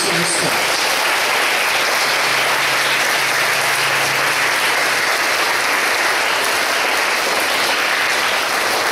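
Steady applause from a hall full of schoolchildren clapping.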